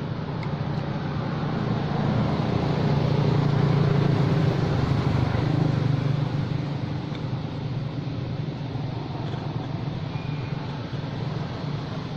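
Low engine hum of a motor vehicle, growing louder to about four seconds in and then easing off.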